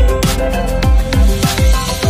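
Electronic background music with a steady beat: deep kick drum hits that drop in pitch, sharp snare-like hits and held synth notes.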